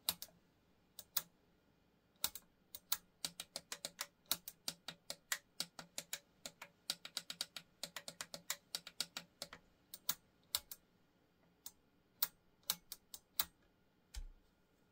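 Sharp, irregular clicking from the front-panel buttons and knobs of a HANGELL 30 V 10 A benchtop power supply being worked by hand, several clicks a second with short pauses. The unit has just died and does not respond. A short low bump comes near the end.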